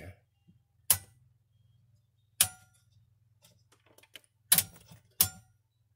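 A few sharp clicks: one about a second in, one near two and a half seconds, and two close together near the end. Fainter small ticks fall between them, and a faint low steady hum runs underneath.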